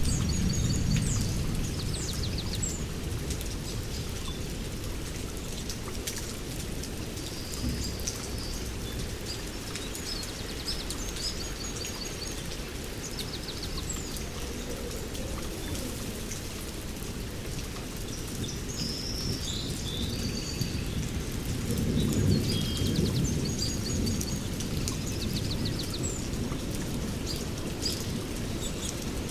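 Steady rainforest rain with low rolls of thunder, strongest at the start and again about three-quarters through, while birds keep calling in short high chirps and trills.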